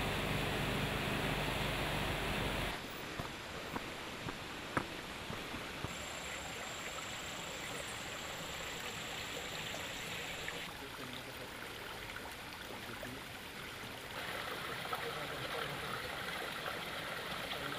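Rushing of a flood-swollen river, loudest for the first few seconds. It cuts off abruptly to quieter outdoor background noise with a few light clicks and, for several seconds in the middle, a thin steady high whine.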